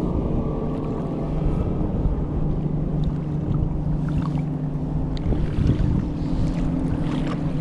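Boat motor running with a steady drone, with wind buffeting the microphone.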